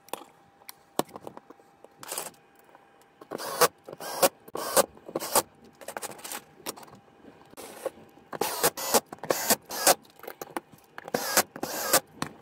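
Thin steel plates and 3D-printed plastic excavator boom parts being handled and fitted together: irregular metallic clicks, taps and short scrapes in several clusters.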